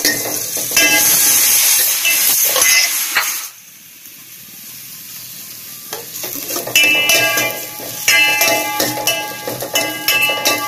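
Sliced onions and green chillies sizzling in hot oil in a stainless-steel pan while a steel ladle stirs them, scraping and clinking on the pan. The stirring pauses for a couple of seconds about a third of the way in, leaving a faint sizzle, then the ladle strikes and rings on the pan again.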